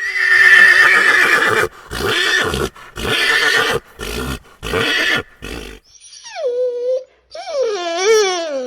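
Horse neighing: a loud call and a run of short calls, then two high whinnies that fall in pitch with a wavering tremble near the end.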